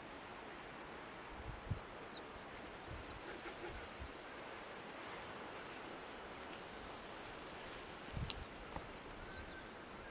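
Bird calls: a quick run of high chirping notes in the first second, then a rapid high trill about three seconds in, over a steady outdoor hiss of wind and sea. A few low wind bumps hit the microphone.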